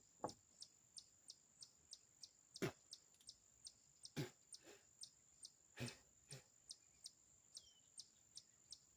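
Faint insects chirping in an even rhythm of about three pulses a second over a high, steady drone, with a few scattered sharp clicks and knocks.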